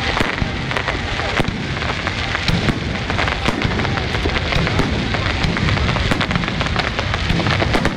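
Fireworks display: aerial shells bursting overhead in a dense, continuous run of sharp bangs and crackling.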